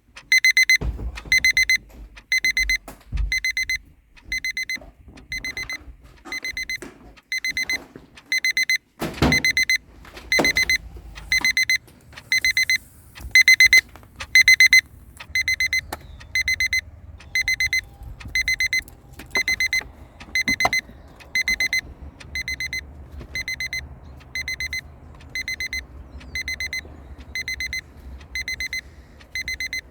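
Electronic alarm clock beeping: a high, shrill beep in quick clusters, repeating about once a second without a break. A few dull thumps sound under it near the start and around 9 to 10 seconds in.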